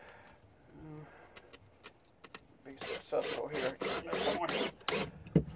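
A cordless drill driving a drywall screw into a wooden board. There is a short whir about a second in, then the drill runs in uneven spurts under load for about two seconds near the end as the screw goes in.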